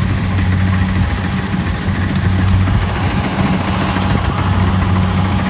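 An engine idling steadily, with a low, even hum.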